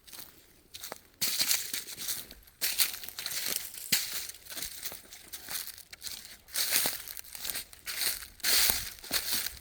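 Footsteps crunching through leaf litter and storm debris, roughly one crunchy step a second.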